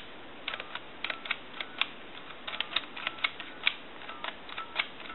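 Push buttons on a Western Electric Trimline handset keypad being pressed one after another, a run of sharp plastic clicks as the digits are dialled, several followed by a short faint touch-tone beep.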